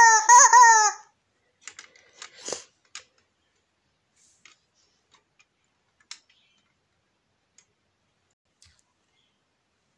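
Rubber chicken squeeze toy squawking: a loud, drawn-out nasal note that bends up and down and stops about a second in. A few faint clicks and light knocks follow.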